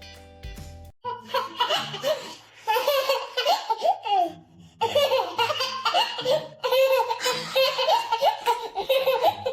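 A baby laughing hard in repeated high-pitched runs of giggles, after background music cuts off about a second in.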